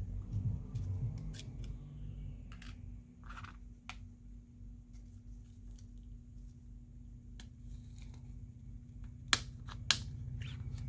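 Plastic clips of a Samsung Galaxy A20's middle frame clicking and snapping as the frame is pried away from the screen frame. The clicks are scattered, with two sharper snaps near the end, over a steady low hum.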